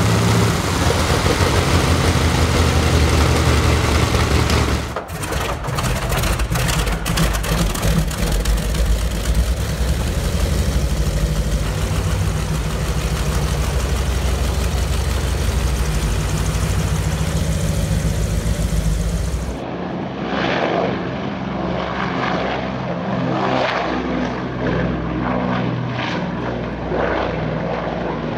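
Big twin-row radial aircraft engines, Wright R-3350 Duplex Cyclones, running steadily on test stands, with a sudden change of engine about five seconds in. About twenty seconds in, the sound cuts to a Lockheed Constellation's R-3350-driven propellers running as it moves along a runway.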